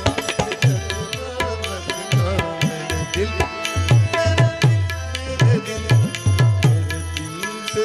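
Instrumental music: tabla playing a brisk pattern, its deep bass-drum strokes sliding down in pitch, over held melodic notes.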